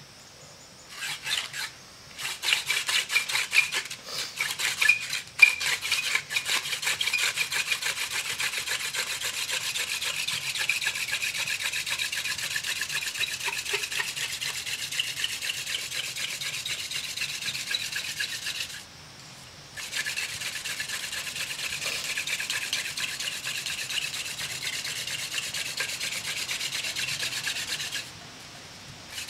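Hand-drill friction fire: a slender wooden spindle spun back and forth between the palms, its tip grinding in a wooden fireboard with a fast, steady rasping. It starts with a few separate strokes, breaks off briefly about two-thirds of the way through, and stops shortly before the end.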